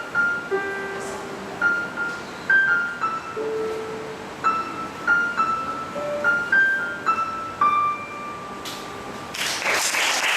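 Solo piano playing the closing melody of a piece, single struck notes ending on a held note. Audience applause breaks out about nine seconds in.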